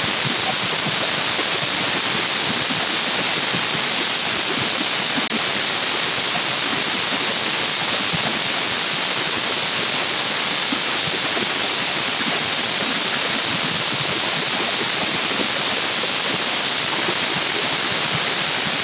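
Steady, unbroken hiss of steam escaping from a pressure cooker on a gas flame as it builds pressure, before its first whistle.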